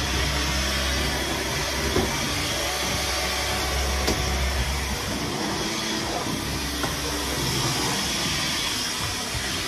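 Dyson cordless stick vacuum running steadily, with a couple of light knocks.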